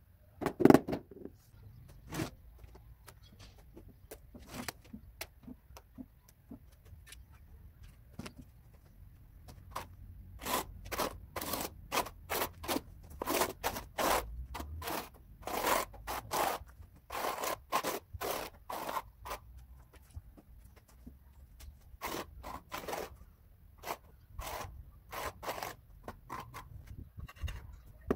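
A mallet tapping a ceramic floor tile down into its adhesive bed a few times near the start. Then a notched steel trowel scrapes and combs wet cement tile adhesive across the ground in a long run of short, repeated strokes.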